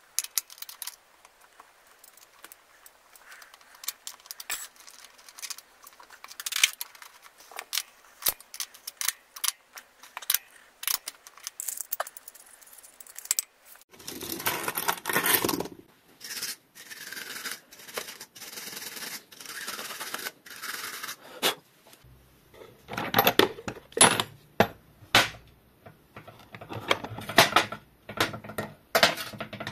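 Metal bicycle hand tools clicking and clinking as they are handled and set down, with a few stretches of rummaging and scraping.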